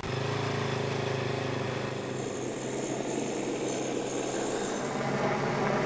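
Honda single-cylinder rally motorcycle engine idling steadily.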